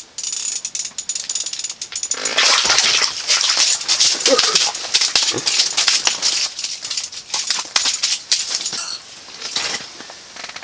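Irregular rustling, clicking and clattering as a small pike is hauled up through the ice hole on a jigging rod and handled. The noise is dense at first and quieter near the end.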